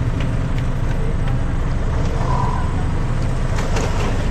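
Auto-rickshaw engine idling with a steady low rumble, with a few light clicks and a brief high tone about two seconds in.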